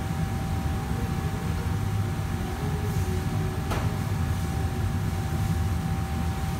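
Steady low rumble of a commercial kitchen's exhaust hood and wok-range equipment running, with a faint constant whine over it. A single sharp knock sounds a little over halfway through.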